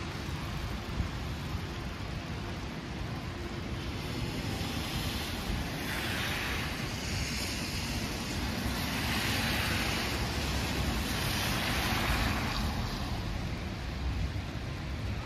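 Outdoor ambience of a wet city street in light snow: a steady low rumble with two swells of hissing noise, one about six seconds in and a longer one from about nine to twelve seconds.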